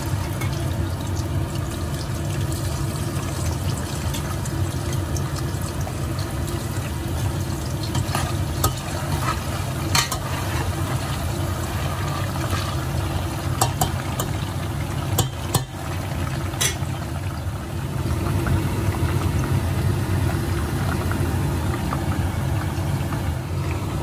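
Thin cassava slices deep-frying in hot oil, a steady sizzling and bubbling with a low rumble underneath. A few sharp clicks stand out around the middle, and the frying grows a little louder about eighteen seconds in.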